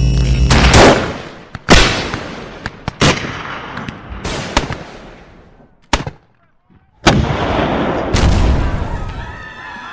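A harsh distorted buzz breaks off under a second in, giving way to a string of loud gunshots and blasts, each trailing off in a long echoing tail. The shots briefly drop out around six seconds in, then start again. Faint wavering tones come up near the end.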